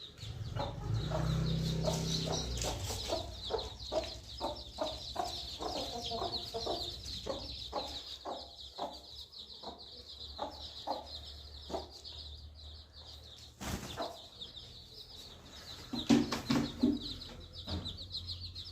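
Aseel chicks peeping continuously in high, rapid chirps, with a hen's short low clucks repeating throughout. The clucking grows louder for a moment about 16 seconds in.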